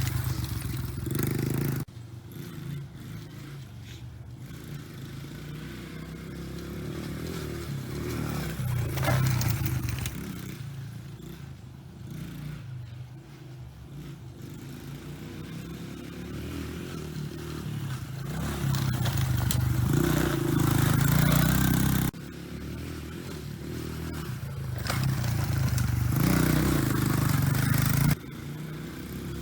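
Dirt bike engine running and revving, rising and falling in pitch, with abrupt changes about two seconds in, around twenty-two seconds and near the end where separate clips are cut together.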